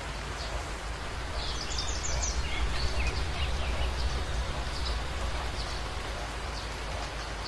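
Steady rushing outdoor nature ambience with a low rumble and faint bird chirps, the chirps clearest around two seconds in.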